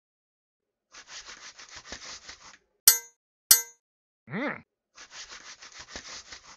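Cartoon sound effects for an animated character: a rapid patter of scratchy taps, about seven a second, then two sharp metallic clangs with a ringing tail about half a second apart, a short vocal grunt that rises and falls in pitch, and another patter of taps near the end.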